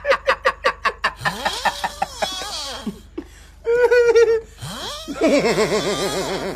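A person laughing hard: a fast run of short laughs at the start, then longer gliding and wavering laugh sounds.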